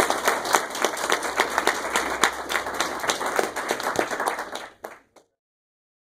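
Audience applauding with dense, irregular clapping that fades and cuts off to silence about five seconds in.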